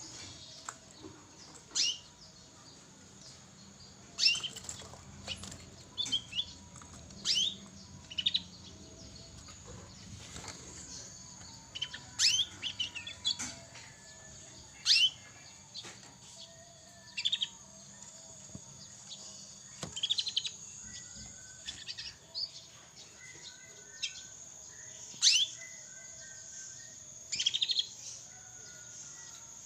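Young canary giving short, high chirps and brief twittering phrases, one every second or two with gaps between, rather than a continuous song: a juvenile practising its first song.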